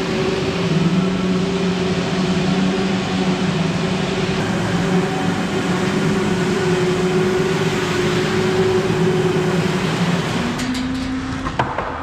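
Ride-on floor scrubber running: a steady motor hum over a wide hiss, the pitch of the hum shifting slightly near the end.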